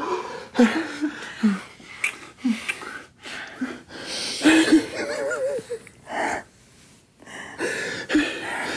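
A person sobbing and gasping with emotion: uneven, breathy sobs and catches of breath, with a short wavering cry about five seconds in.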